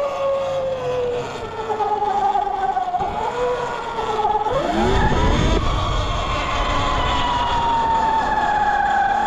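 72-volt electric dirt bike's motor whining while riding: the pitch falls as it slows, dips sharply about five seconds in, then climbs as it accelerates and holds high, easing down near the end. A low rumble comes in as it picks up speed.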